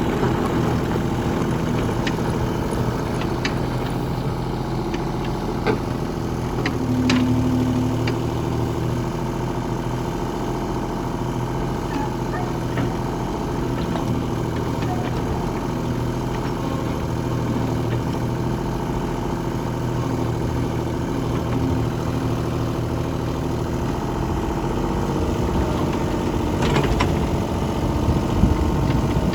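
Mini excavator engine running steadily, with a few sharp clanks and knocks, one at about 6 seconds in, another about a second later and more near the end.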